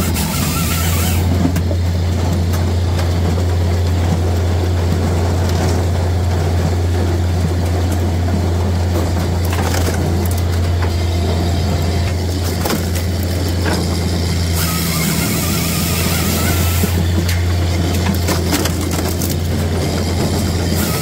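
Japa 405 firewood processor running, with a steady low hum from its power unit and hydraulics. Over it come irregular knocks and clatter as logs are split and the split pieces tumble out of the splitting chamber.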